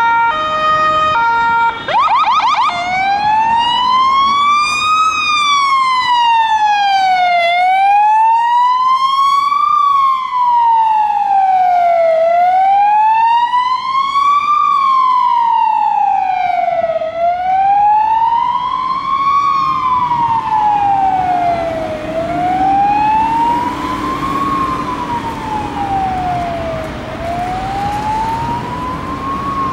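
Ambulance electronic siren on an emergency run. It starts with a short stepped tone pattern, gives a quick yelp about two seconds in, then settles into a slow wail that rises and falls about every five seconds. The wail grows somewhat quieter in the last third.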